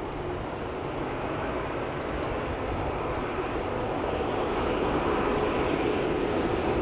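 Jet engines of a Boeing 747-8F freighter: a steady rushing noise that grows louder through the second half.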